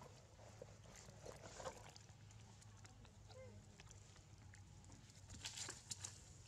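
Near silence: faint outdoor ambience with a low steady hum and a few soft ticks, and a brief rustle about five and a half seconds in.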